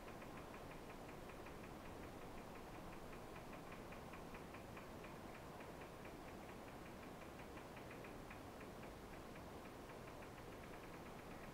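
Faint, rapid, even ticking, about six ticks a second, with a short break about nine seconds in, over a low steady room hiss.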